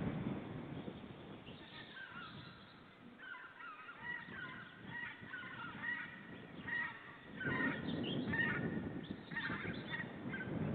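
Osprey calling: a run of short, clear, high notes that go on for about eight seconds. Low wind rumble sits beneath them and swells about halfway through.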